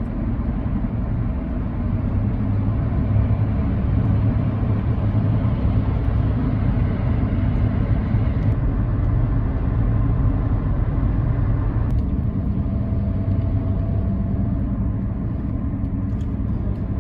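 Steady road and tyre noise with a low rumble from a car driving along, the hiss easing slightly about halfway through.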